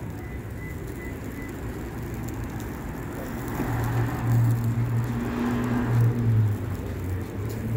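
Street traffic noise over a steady low engine hum, with a vehicle's sound swelling and fading through the middle few seconds.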